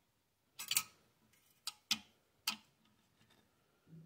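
Screwdriver clicking in the mounting screws of a Thermaltake TOUGHAIR 110 CPU tower cooler as they are tightened down: a handful of sharp, irregular metal clicks, a quick pair first, then three single clicks.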